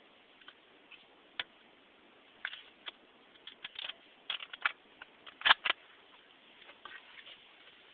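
Irregular soft clicks and knocks over faint background hiss, the loudest a short cluster about five and a half seconds in.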